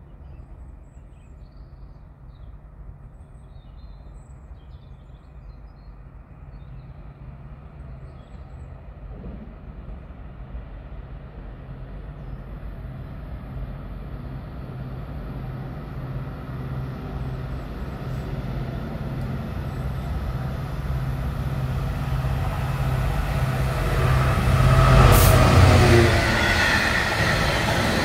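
Class 66 diesel locomotive 66007 hauling a freight train, its EMD two-stroke V12 engine droning steadily and growing louder as it approaches, passing close by near the end. It is followed by a string of bogie hopper wagons rolling past.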